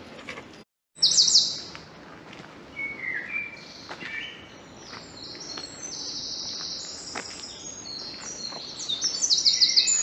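Songbirds singing in trees, a mix of high chirps and quick trills that grow busier and louder toward the end. The sound cuts out completely for a moment just under a second in.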